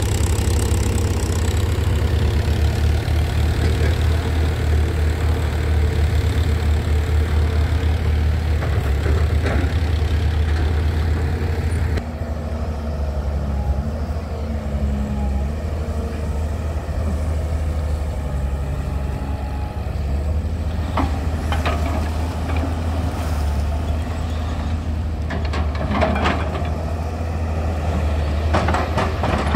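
A tractor engine running steadily. About twelve seconds in, the sound cuts to a Hyundai 210-7 crawler excavator's engine running, with a few short clanks and scrapes of the bucket in the mud in the second half.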